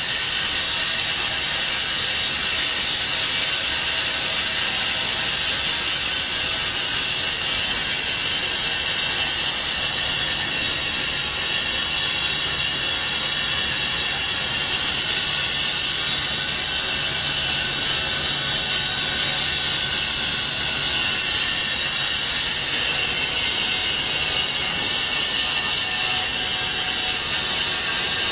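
Vertical band-saw foam-cutting machine running steadily, a continuous high-pitched hiss from its blade and motor.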